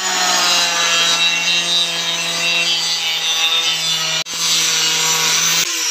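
Handheld angle grinder with a cutting disc cutting through wood-plastic composite (WPC) fluted panels: a steady high motor whine with a hissing cut. It breaks for an instant about four seconds in and stops shortly before the end.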